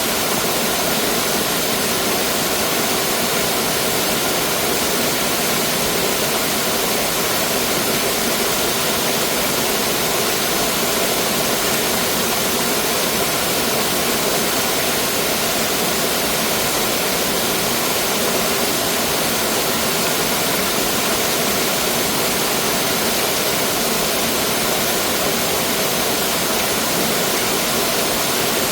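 Mountain stream water rushing and splashing over rocks, a steady, even rush with no breaks.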